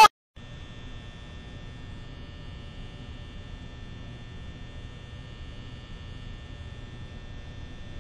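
A steady electrical-sounding hum with a thin, faint high whine above it, even and unchanging. It starts a moment in, after a brief gap.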